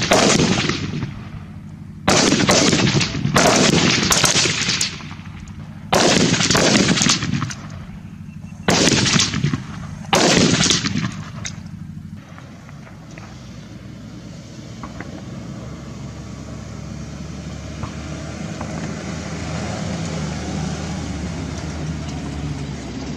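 Bursts of automatic rifle fire: six short bursts, each about a second long and trailing off in echo, over the first eleven seconds. After that comes a steady low rumbling noise.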